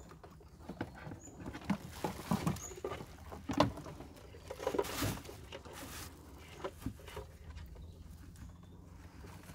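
Wire-frame crab trap with mesh netting being handled by gloved hands: irregular light rattles, scrapes and clicks of the wire and netting.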